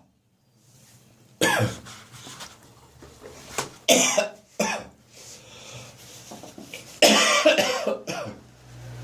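A person coughing hard in several bouts: one cough about a second and a half in, a quick cluster around four seconds, and a longer coughing fit near the end. It is a chesty morning cough, which the cougher puts down to the cold, damp weather.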